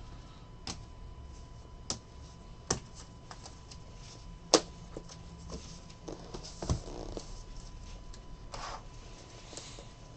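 Trading cards being handled and set down on a table while sorted: a dozen or so scattered sharp clicks and taps, the loudest about halfway through, with a brief rustle of cards near the end.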